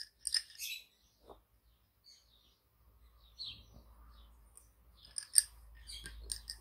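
Lace bobbins clicking against each other as pairs are crossed and twisted in bobbin lace. A few light clicks come at the start, then a brief lull, then a cluster of sharper clicks in the last second and a half.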